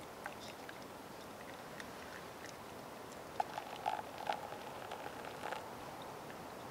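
Hot water poured from a metal mug onto coffee grounds in a paper filter on a wire pour-over dripper: about two seconds of light pattering and small clinks about halfway through, over a steady low hiss.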